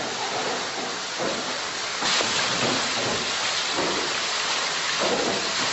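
Water rushing and splashing through a water mill's wooden flume, a steady roar of water that grows louder about two seconds in.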